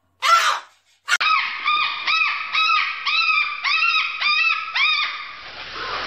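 A white cockatoo calling in a rapid string of short squawks, about three a second, each rising and then falling in pitch. A single short loud call comes just before them at the start.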